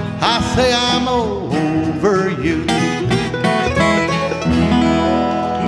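Bluegrass band of banjo, acoustic guitars, mandolin and upright bass playing the closing bars of a song, settling on a sustained final chord near the end.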